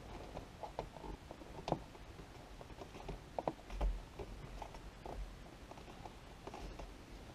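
Scattered light clicks and taps of hands working a plastic trim shroud onto a car's rear-view mirror mount, with a sharper click about two seconds in and two quick clicks about three and a half seconds in.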